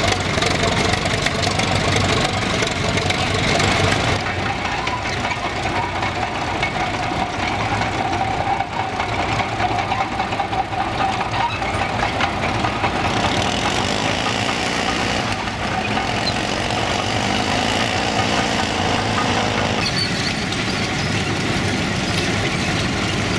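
Engines of vintage crawler tractors running, a steady mechanical sound that changes abruptly about four seconds in, again about halfway through and near the end. A grey crawler tractor drives past near the end.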